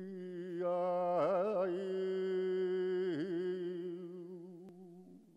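Flamenco singer holding one long note, breaking into wavering ornamental turns about a second in and again past three seconds, then fading away near the end.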